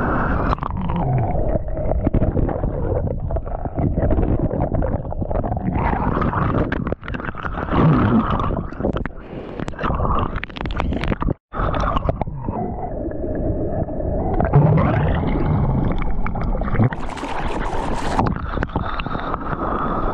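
Breaking-wave whitewater churning and rushing around an action camera held underwater: a muffled, turbulent rush of water and bubbles, with a brief dropout about halfway. Near the end the camera comes back to the surface and the sound opens up into brighter splashing.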